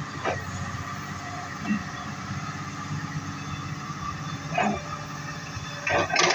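A heavy-equipment diesel engine runs steadily, with a few short knocks and clanks, the loudest near the end.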